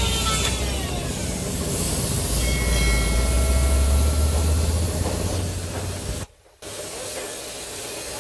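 Compressed-air paint spray gun hissing steadily as it sprays paint into a truck wheel, over a low rumble. The hiss cuts out for a moment about six seconds in, then resumes.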